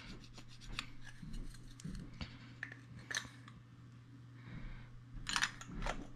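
Small clicks and light scrapes of a 2-cell Mag-Lite flashlight being handled, with a cluster of sharper clicks near the end as its head is threaded back onto the barrel.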